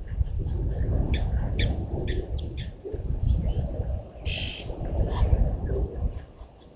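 Wild birds chirping: a quick run of short high chirps a second or two in, then a brief harsher call about four seconds in, over a thin steady high-pitched whine. A loud, uneven low rumbling noise runs underneath and is the loudest sound.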